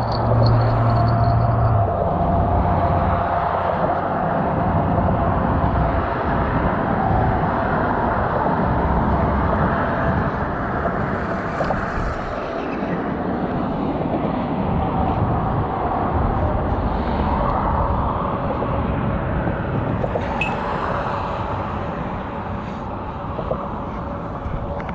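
Steady road traffic on a bridge, with vehicles passing that swell and fade, one at a time, a few times over the stretch.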